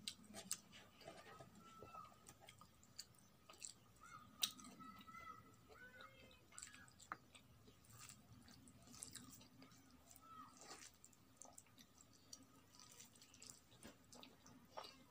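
Close-up chewing of a mouthful of rice and curry eaten by hand, with frequent small wet mouth clicks and smacks scattered irregularly throughout.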